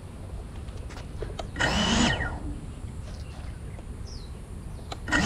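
Small FPV cinewhoop drone's brushless motors give a short whirring spin-up and wind down with a falling pitch about two seconds in, then start spinning at a steady idle hum just at the end, as they are armed for takeoff. Otherwise a low outdoor rumble.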